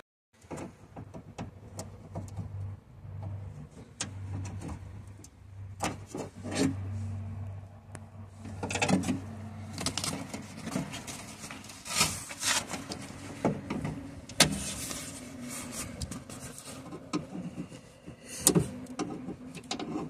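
Plastic wiring-harness clips and electrical connectors being unclipped and pried loose inside a car door: scattered clicks, snaps and rattles, over a low steady hum.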